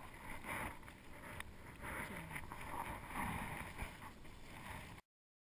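Water sloshing and lapping against a small boat in uneven swells, with some wind on the microphone; the sound cuts off suddenly about five seconds in.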